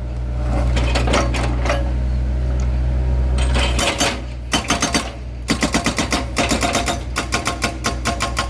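Excavator-mounted hydraulic breaker hammering concrete, with the excavator's diesel engine running underneath. The engine hum is steady at first, and about three and a half seconds in the breaker starts a fast run of sharp blows, several a second, with short breaks.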